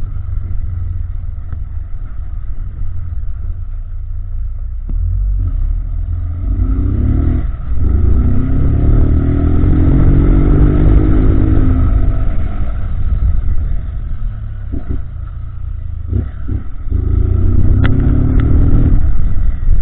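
Honda CG Titan 160 motorcycle engine revving up through the gears, its pitch climbing and then dipping briefly at each shift, over a steady low wind rumble.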